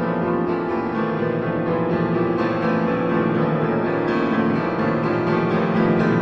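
Piano music playing steadily.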